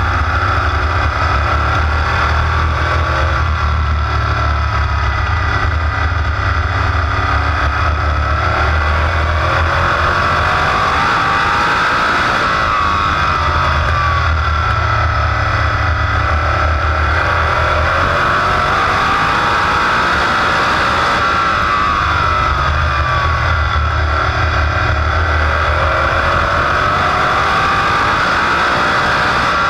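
Big-block Chevrolet V8 of a supermodified race car, heard onboard at racing speed, loud and continuous. Its pitch drops and climbs again over and over as the car lifts for the turns and accelerates down the straights.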